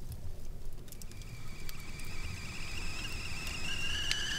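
A thin, high whistling tone fades in about a second and a half in and slowly rises in pitch, wavering slightly, with a fainter higher overtone above it.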